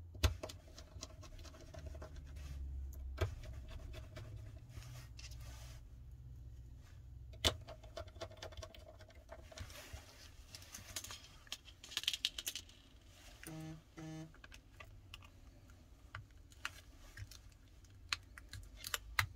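Small parts of an opened smartphone being handled: scattered sharp clicks and taps with light scraping as the plastic antenna plate is set onto the phone and a precision Phillips screwdriver is brought to it. Two short pitched tones sound about two thirds of the way through.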